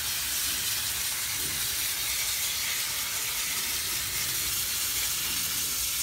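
Garden hose nozzle spraying a stream of water onto an air conditioner's condensing coil, a steady hiss as the water washes caked dirt off the fins.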